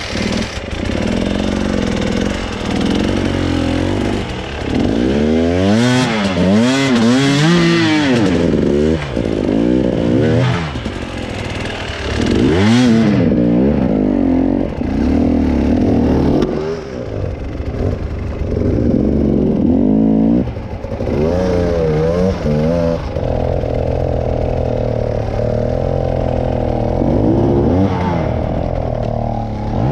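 A vehicle engine revving up and easing off again and again, its pitch rising and falling about once a second, then holding steadier for a few seconds near the end.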